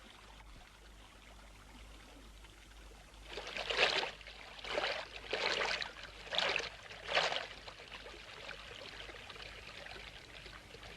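Water splashing in five short, noisy rushes a little over a second apart, over a faint steady hiss.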